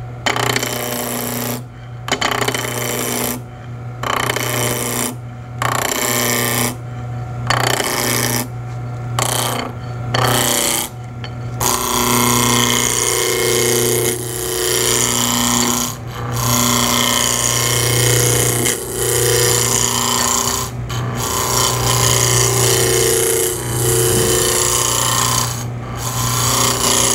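Wood lathe running at about 1800 RPM with a steady motor hum while a roughing gouge cuts a spindle blank down to a cylinder. The cutting noise comes and goes in short passes with brief breaks during the first half, then runs almost continuously.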